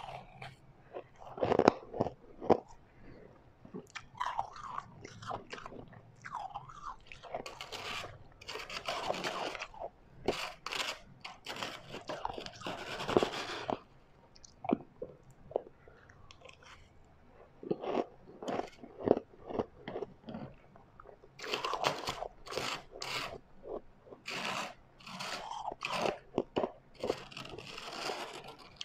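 Refrozen white ice being bitten and chewed: sharp cracking bites and longer grinding crunches that come in irregular bursts with short pauses between them.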